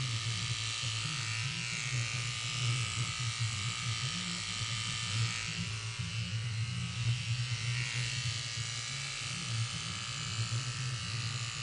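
Corded electric hair clippers running with a steady low buzz as they shave through hair on the side of a head.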